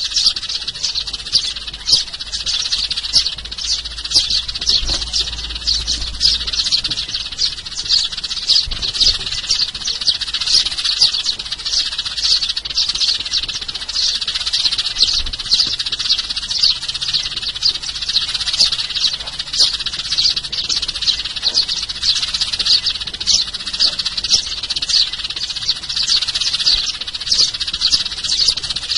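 Sparrows chirping: a dense stream of short, high chirps, several a second and overlapping, at a steady level.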